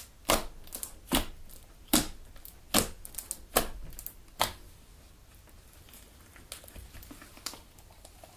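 Homemade Elmer's Galaxy glue slime being kneaded and pressed by hand, giving sharp pops and clicks about once every 0.8 s, then a few fainter ones after about five seconds.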